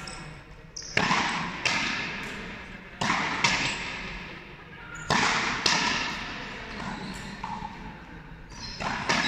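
Frontenis rally: a rubber ball cracking off stringed rackets and smacking the front wall, each hit ringing out in the large frontón hall. Hits come in quick pairs about a second and a half apart, with softer ones near the end.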